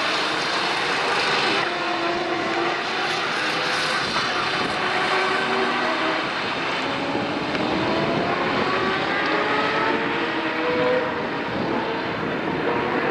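Several racing kart engines running at high revs together, their pitches climbing as the karts accelerate, overlapping whines.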